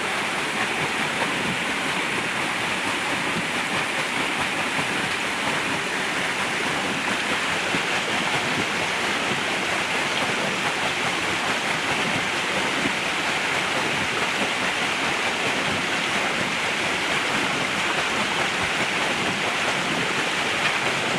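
Steady rush of flowing water driving a small water-wheel generator, with no change in level.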